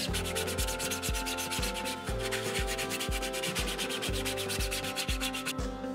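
Sanding sponge scrubbed in quick, even back-and-forth strokes over a 3D-printed PLA plastic skull. The scrubbing stops about five and a half seconds in.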